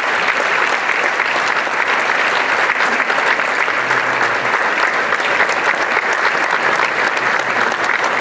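Audience applauding, a dense, steady clapping throughout.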